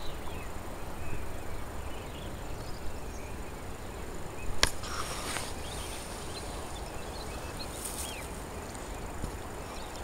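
Outdoor ambience: a steady low wind rumble on the microphone with scattered faint bird chirps, and a sharp click about halfway through.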